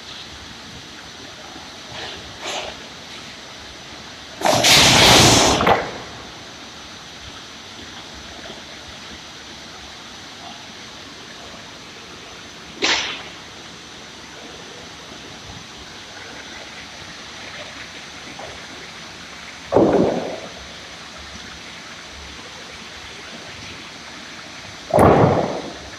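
PROSAW 460 cant-sawing machine running with a steady noisy hum. Four loud bursts break through it: a long one of about a second and a half about five seconds in, then short ones about 13, 20 and 25 seconds in.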